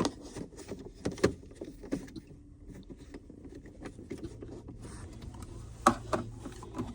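Scattered light clicks and knocks of a diagnostic connector being handled and plugged into a car's OBD port, with a faint steady hum joining about four seconds in.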